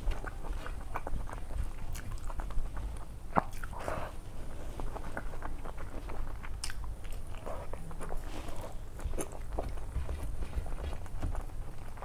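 Close-miked chewing and wet mouth sounds of rice and dal eaten by hand, with soft squelches as fingers mix rice into runny dal and scattered small clicks.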